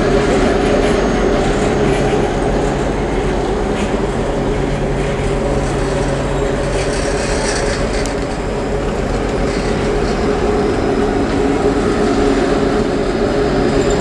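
Passenger sleeper coaches of a long train rolling past at speed: a loud, steady rumble of wheels on the rails.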